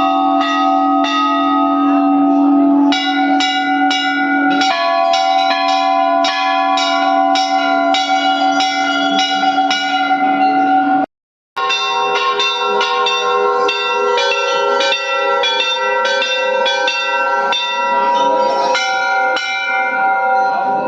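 Bells struck over and over in a steady rhythm, about two to three strikes a second, each ringing on; the ringing pitches shift a few times. The sound drops out briefly about halfway through, then resumes.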